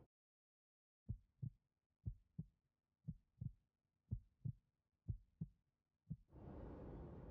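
Heartbeat sound effect: five slow double thumps, lub-dub, about one a second, then a single thump, after which faint steady outdoor background noise comes in.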